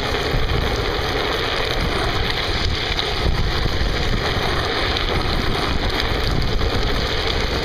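A steady rush of wind buffeting the microphone over the rumble of wheels rolling on asphalt during a fast downhill run.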